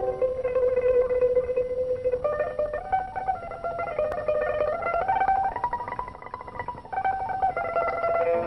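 Instrumental music on a plucked string instrument, playing a melody of single notes. From about two seconds in, a rapid tremolo passage climbs in pitch, then eases back to single notes near the end.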